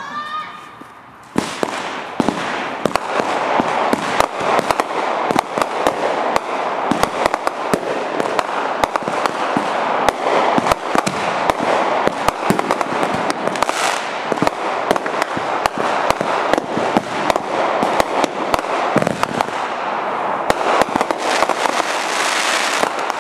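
Fireworks going off in a dense barrage: a rapid, continuous volley of crackling pops and bangs starts abruptly about a second and a half in and keeps going. A whistling firework trails off at the very start.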